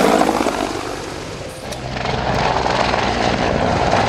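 Mil Mi-24P attack helicopter passing low overhead, its rotors and twin turboshaft engines loud. The sound dips briefly about a second and a half in, then the steady low rotor beat returns as it flies on.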